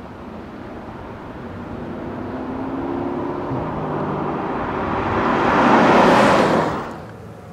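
Porsche Panamera GTS with its 4.8-litre V8 approaching and passing close by: the engine note rises in pitch as it comes on, then a loud rush of engine and tyre noise peaks about six seconds in as it passes, and falls away quickly.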